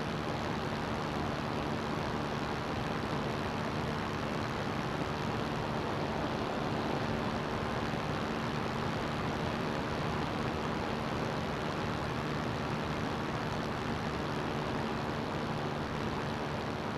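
A CGS Hawk ultralight's engine and propeller run at a steady speed: an even drone with a constant pitch under a steady hiss of rushing air.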